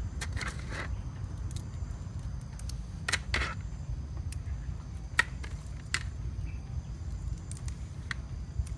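Small live crabs being cleaned by hand: a few sharp clicks and cracks as shells are snapped and pried apart, the loudest about three and five seconds in, over a low steady rumble.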